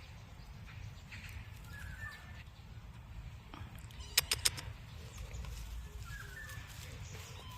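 Quiet outdoor background with a steady low rumble and faint bird chirps, twice. About four seconds in comes a quick run of four sharp clicks.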